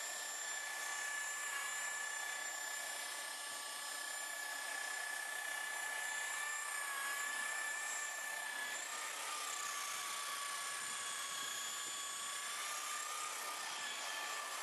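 Rotary buffer running with a steady high whine as its foam pad polishes a car's door window trim; the pitch sags slightly a couple of times as the pad is pressed against the work.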